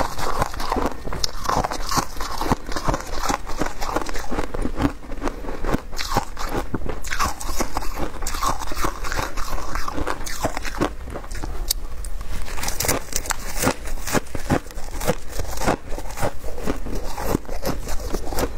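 Shaved ice being bitten and chewed, close to the microphone: a dense, unbroken run of crisp crunches.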